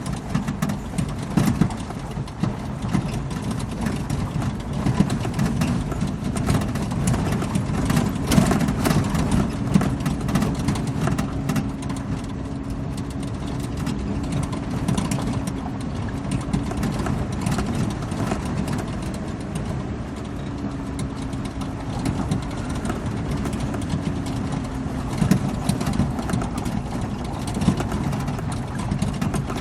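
Jeep driving over a dirt track, its engine running at a steady pace with a dip in pitch partway through, under frequent knocks and clatters from the bumpy ride, heaviest about eight seconds in.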